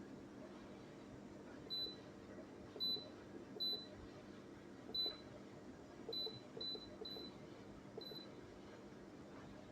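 Eight short, high electronic beeps at irregular intervals, like keypad button presses on an appliance's digital control panel, over a faint steady low hum.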